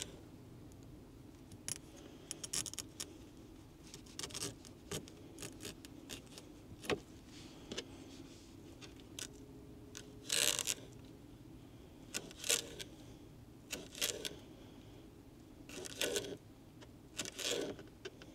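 Kitchen knife slicing small gizzard shad fillets into sashimi strips on a cutting board: irregular knocks of the blade on the board and a few louder short scraping strokes, over a steady low hum.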